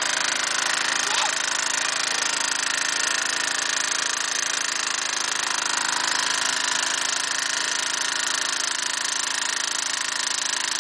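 Gasoline lawnmower engine driving a long-tail boat propeller, running steadily at an even speed with no change in pitch.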